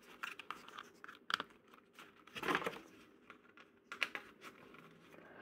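Plastic landing-gear legs of a toy drone being handled and pressed onto its body by hand: a few faint plastic clicks and rustles. The legs push on without screws.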